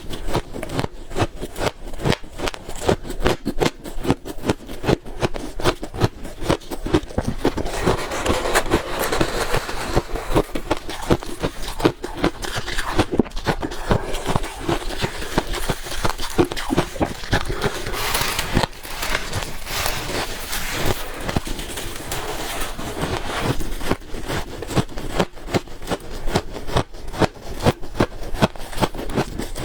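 Freezer ice being bitten and chewed: a dense, continuous run of sharp crunches and cracks, several a second.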